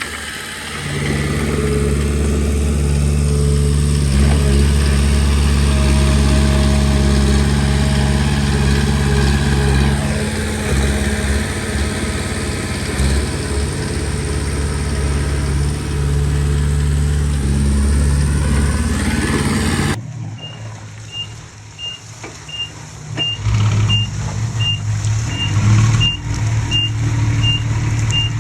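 Komatsu D20P bulldozer's diesel engine running steadily under load. About two-thirds of the way through, the engine sound drops abruptly and a reversing alarm starts beeping at a steady pace, a little under two beeps a second, while the engine comes back up.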